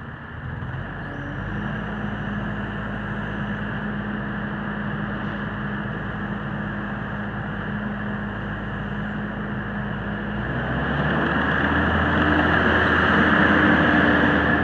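Kubota diesel engine of a tracked skid steer running steadily, then throttled up about ten seconds in, running louder and at a higher pitch.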